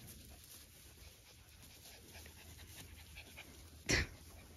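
A dog panting quietly, with one short, sharp sound near the end.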